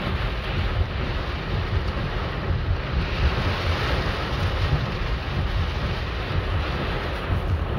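Heavy storm rain and wind beating on a car, heard from inside the cabin: a steady, dense rushing noise with a deep low rumble.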